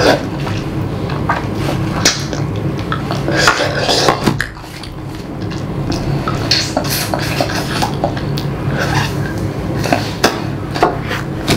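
Close-up chewing and mouth sounds of someone eating pork trotter pickle by hand: irregular wet smacks and crunchy clicks, over a steady low hum.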